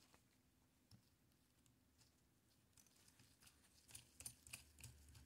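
Near silence, with faint small clicks and taps of metal parts of an automatic numbering stamp being handled: a single click about a second in, then a quicker run of irregular clicks in the last two seconds.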